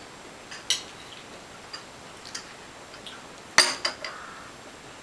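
Metal spoon clinking against a bowl while eating: a few light clinks, then a louder double clink about three and a half seconds in.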